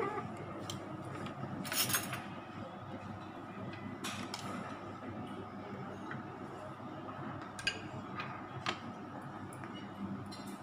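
Spoons clinking and scraping against ceramic plates and bowls during a meal, with a few sharper clinks about two, four and eight seconds in, over steady background noise.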